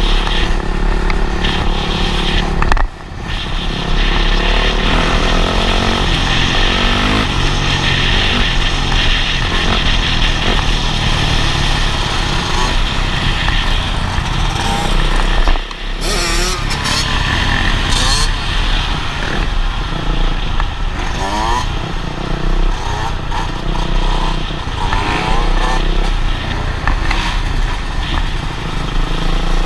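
Dirt bike engines running and revving through the gears, the pitch climbing in several runs as the bikes accelerate, over a heavy wind rumble on the microphone. The sound cuts out briefly twice, about three seconds in and again about halfway through.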